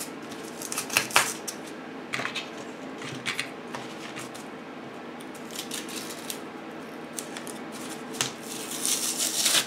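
Cardboard backing being peeled and torn off a thin plywood panel by hand: short, scattered scratchy tearing sounds, with a longer run of tearing near the end.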